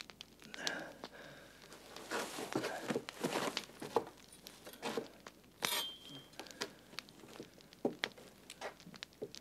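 Scuffle of two men grappling at close quarters: clothing rustling and crumpling, with scattered knocks and shuffling at uneven intervals.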